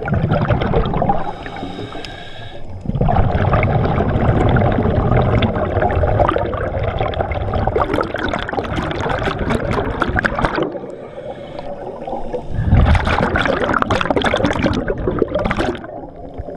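Underwater water noise picked up by a camera below the surface: rushing and gurgling water in uneven surges, dropping off briefly about a second in and again around eleven seconds.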